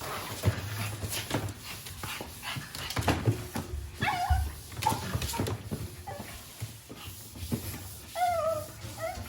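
Japanese Chin puppy giving several short, high, wavering whimpers, the longest near the end, among scattered clicks and knocks.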